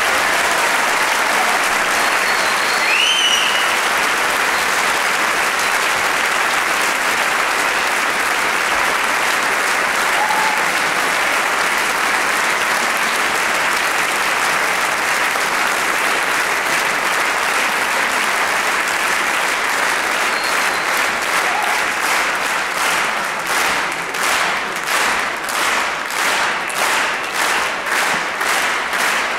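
Large concert-hall audience applauding. In the last several seconds the clapping falls into a steady rhythmic beat in unison, about one and a half claps a second.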